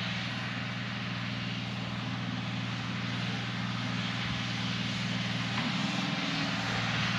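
Tractor diesel engine running steadily under way, a constant low hum with a broad mechanical rush, getting a little louder near the end.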